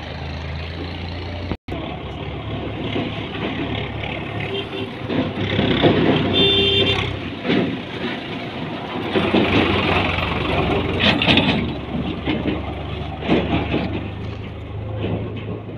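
Vehicle engine running nearby as a steady low hum, with busier, louder traffic-like noise through the middle and a couple of short pitched blips.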